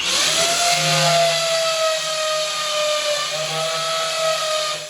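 Power drill boring a hole for a hook, starting abruptly and running with a steady whine that sags slightly about three seconds in, as the bit bites, then recovers before it stops near the end.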